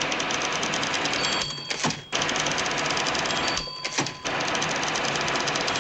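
Manual typewriter typed very fast, a rapid stream of key strikes. Twice the margin bell dings and the carriage is thrown back for a new line, then the typing resumes.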